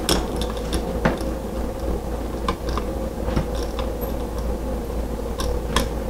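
Screwdriver backing out a light switch's terminal screw, with scattered small metal clicks and scrapes over a steady low hum.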